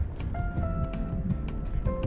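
Background music with a steady, quick beat of light ticks under held melody notes.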